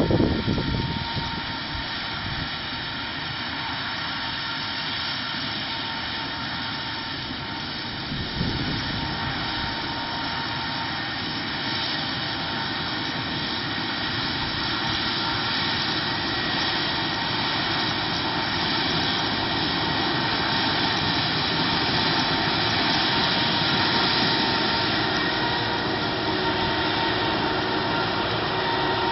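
Claas Lexion 550 combine harvester running under load while harvesting maize: a steady engine and threshing drone with several high whining tones, gradually getting louder as it approaches.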